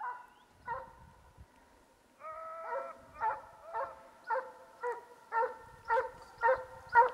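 Russian piebald hound giving tongue on the chase: two short yelps, a drawn-out howl about two seconds in, then a steady run of baying barks about two a second that grows louder.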